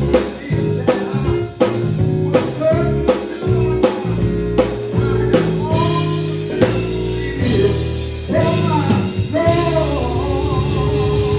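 Live praise-and-worship band playing: electric bass guitar, keyboard and drum kit, with a steady drum beat through the first half and a held keyboard chord later on.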